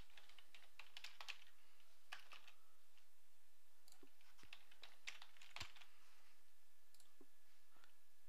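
Faint computer-keyboard typing and mouse clicks: a few scattered keystrokes and clicks with short gaps between them.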